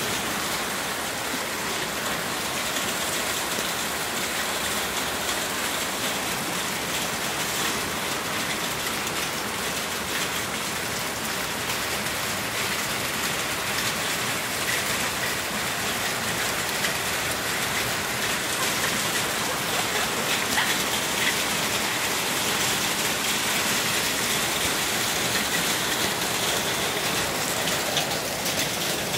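Hail and heavy rain falling together: a steady, dense hiss of countless small impacts.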